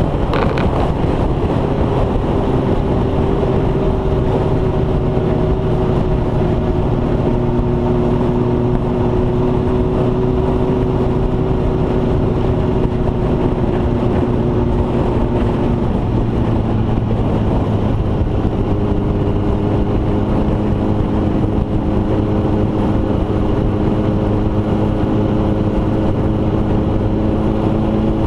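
A vehicle engine running steadily at road speed, with wind and road rumble on the microphone. The engine pitch sags slowly, shifts about two-thirds of the way through, then climbs a little near the end.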